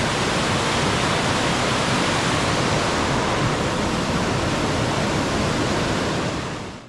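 Rushing water of a rocky forest creek cascading over boulders, a loud steady rush that fades out near the end.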